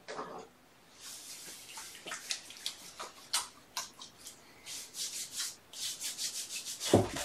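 Cat litter being scraped and raked in a litter box: a run of short, gritty scraping strokes, with a thump near the end.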